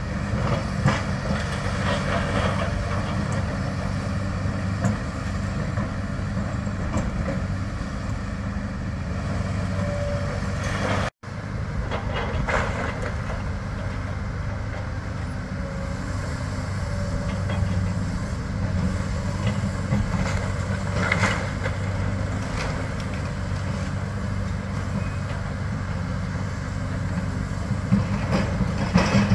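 Demolition excavators' diesel engines running with a steady hum, with occasional knocks and crunches of rubble. The sound cuts out for an instant about eleven seconds in.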